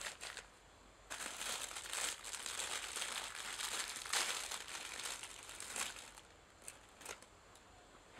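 Crinkling, rustling noise lasting about five seconds, starting about a second in, followed by two short clicks.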